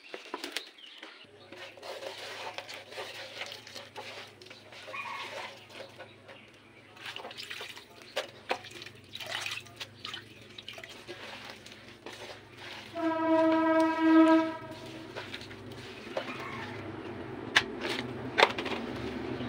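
Spinach leaves rustling as they are handled and stirred in an oiled electric skillet, with a crackling sizzle and a steady low hum underneath. About thirteen seconds in, a horn-like tone sounds once for about a second and a half, the loudest sound here, and a couple of sharp clicks follow near the end.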